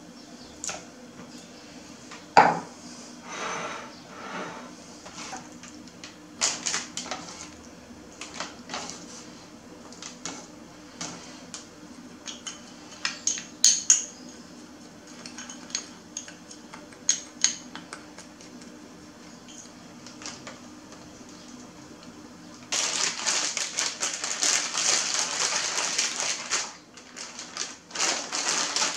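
Scattered knocks and clinks of a spoon, small glass bowl and utensils on a wooden cutting board, the loudest knock about two seconds in. From about 23 seconds in, constant crinkling of a plastic zip-lock bag of seasoned liver being squeezed and worked by hand.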